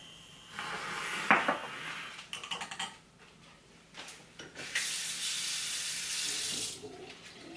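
Kitchen sink faucet running for about two seconds, starting about five seconds in and cutting off sharply. Before it there is a sharp knock about a second in, among fainter handling noises.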